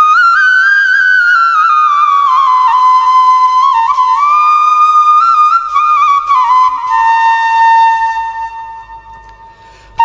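Background music: a slow solo flute melody with sliding notes, ending on a long held note that fades out over the last two seconds.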